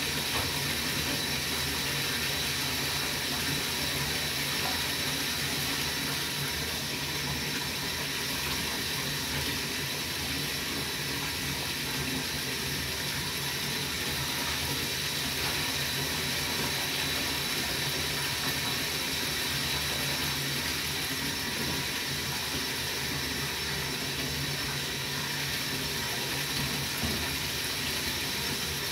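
Water running steadily into a bath, with a faint steady hum beneath it.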